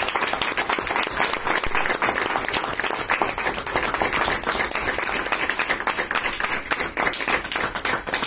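Audience applauding steadily, many hands clapping at once to welcome the next speaker to the stage.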